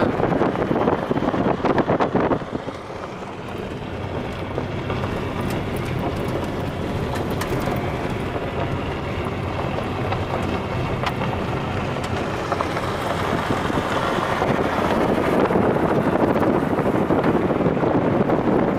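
Steady road and wind noise of a moving vehicle, with wind buffeting the microphone. It is louder for the first two seconds, drops, then builds again and is loudest in the last few seconds.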